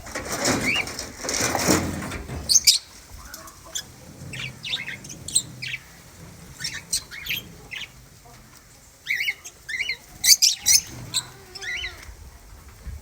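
Birds chirping in short, scattered calls. A rustling, flapping noise fills the first two seconds or so.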